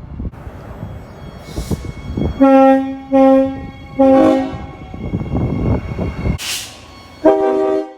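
Locomotive air horn sounded in three short blasts about two and a half seconds in, over the rumble of a passing train. Near the end a different horn, on a different chord, starts sounding.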